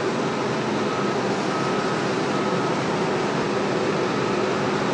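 Steady mechanical drone of an engine or motor, with a short high beep that comes back every second or so.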